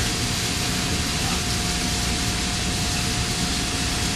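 Steady, even rushing noise with a faint constant tone running through it.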